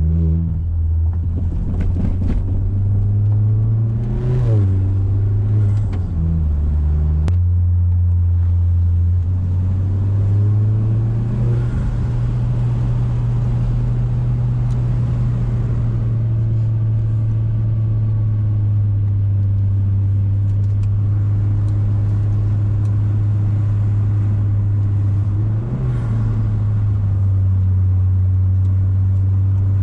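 Mazda6 exhaust note picked up by a microphone at the tailpipe while driving: a steady cruising drone, with the revs rising and falling between about four and seven seconds in and a short rise in revs near the end.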